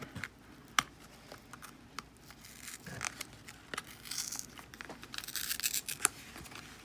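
Plastic retail packaging of a padlock being torn and pried open by hand: crinkling and crackling with scattered sharp clicks, the loudest about a second in and again near the end.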